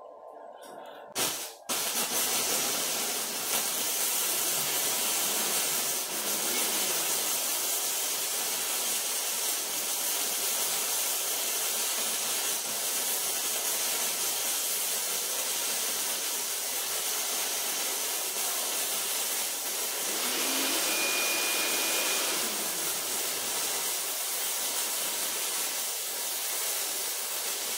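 AWT MIG-100 handheld flux-core welder arc welding quarter-inch steel plate, running maxed out on a single continuous pass. After a couple of short clicks, the arc starts about two seconds in with a steady sizzling hiss that holds without a break.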